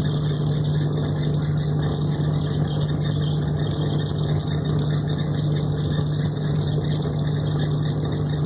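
Steady rushing water, an even, unchanging noise with a constant low hum underneath.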